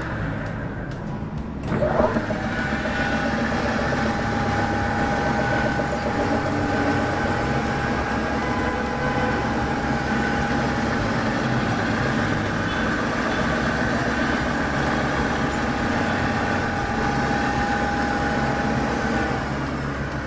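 A 2 hp pillar drill starts with a sharp clunk and a rising whine about two seconds in, then runs steadily, its motor and spindle drive giving a constant whine. The whine dies away near the end as the drill stops.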